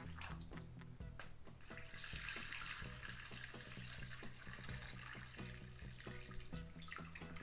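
Cold water running and splashing into a wide aluminium pot as it fills around a chicken roll, with background music. The water is loudest for a few seconds in the middle.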